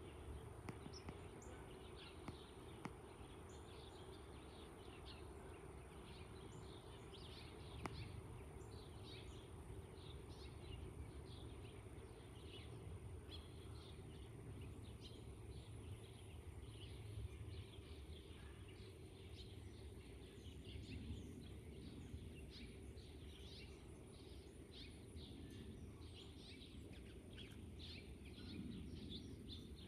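Many small birds chirping in quick short calls, thicker in the second half, over a low steady rumble.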